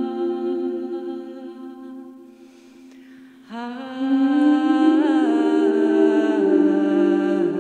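A woman singing long, held wordless notes a cappella into a microphone. The notes fade away about two seconds in, and a new phrase starts about three and a half seconds in, stepping up and down in pitch.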